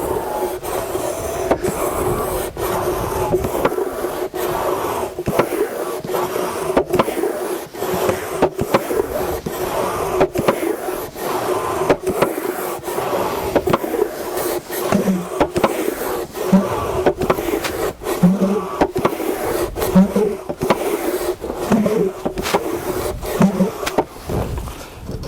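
Hand-pumped wooden piston bellows worked back and forth, the piston rubbing in its box, with a sharp click about every second as its flap valves flip open and shut over a steady hum. From about halfway on, a low thump marks each stroke.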